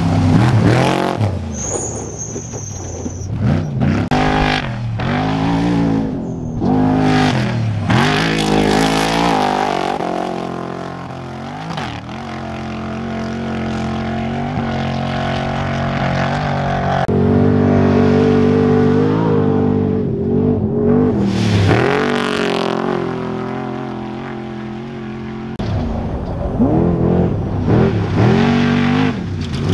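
Trophy trucks' V8 engines at racing speed, one after another, their pitch sweeping up and down as they rev through the gears and go by, with a longer steady high-revving stretch in the middle.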